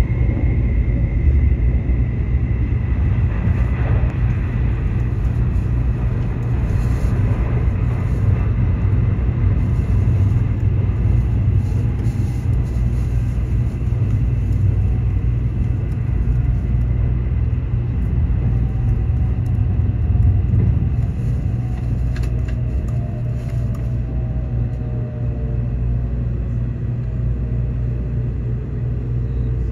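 Nozomi Shinkansen bullet train heard from inside the passenger cabin: a steady, loud low rumble of running noise. In the second half a faint whine falls slowly in pitch as the train slows on its approach to Kyoto station.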